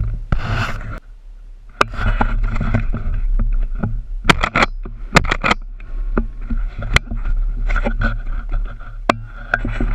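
Shotgun shots fired at ducks overhead: a series of sharp cracks between about two and nine seconds in, the loudest a little over four seconds in. Underneath is the steady rumble and rustle of the body-worn camera rubbing against clothing.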